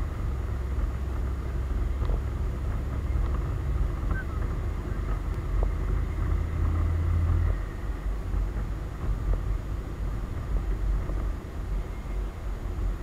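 Yamaha DragStar Classic motorcycle's V-twin engine running while riding along a road. It is a low, steady drone that turns uneven about seven and a half seconds in.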